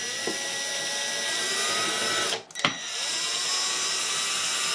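Ridgid cordless drill-driver running in two spells of about two and a half seconds each, with a brief stop between, backing out the screws holding an amplifier's power module.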